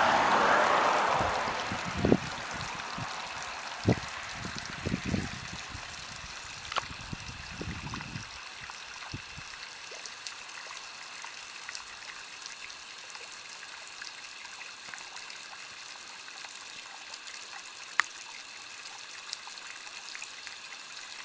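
Water trickling in a drinker for birds and animals, with a louder rush of water at the start that fades over about two seconds. Several low knocks come in the first nine seconds, and a sharp click about eighteen seconds in.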